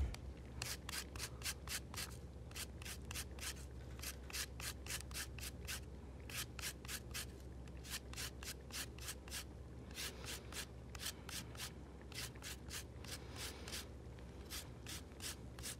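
Lemon rubbed on a fine rasp zester, scraping in quick repeated strokes at about three a second, with a couple of brief pauses.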